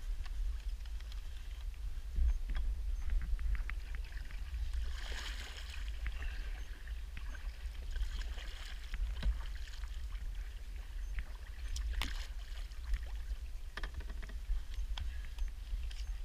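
Kayak paddling: paddle strokes splashing in the water, with scattered sharp knocks of gear against the hull. A steady low wind rumble on the microphone runs underneath.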